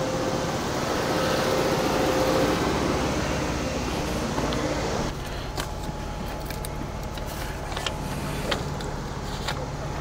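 A car's engine running as the car is moved, louder and noisier for the first five seconds, then dropping suddenly to a steady idle with a few light clicks.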